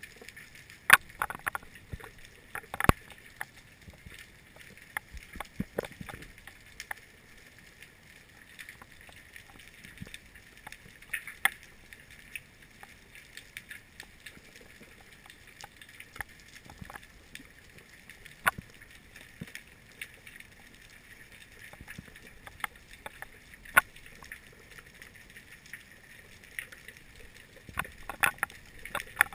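Underwater sound picked up by a GoPro in its housing: a steady hiss with scattered sharp clicks and knocks, the loudest about a second in, near three seconds in and near twenty-four seconds in.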